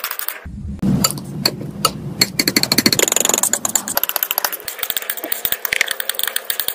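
Metal palette knife mixing and spreading thick paint on paper: a dense run of quick sticky clicks and taps as the blade presses and lifts through the wet paint. There is a brief dropout about half a second in, and a low hum under the first few seconds.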